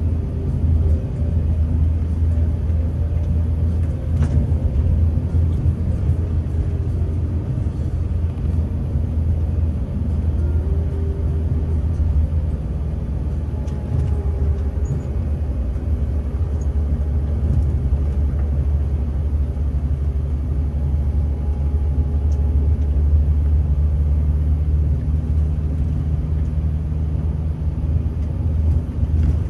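Low, steady drone of a Scania K360 coach's 13-litre DC13 inline-six turbo-diesel under way, mixed with tyre and road rumble, heard from inside the driver's cab.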